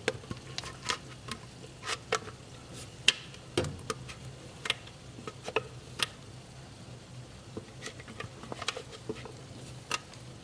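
Silicone spatula scraping and knocking against a plastic food-processor bowl as whipped cream is scraped out, giving irregular light clicks and taps a few times a second or so.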